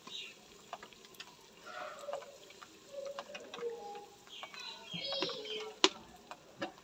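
Wooden spoon stirring onions and spices frying in ghee in a clay handi, with a low sizzle and scattered knocks of the spoon against the pot, the sharpest a little before the end.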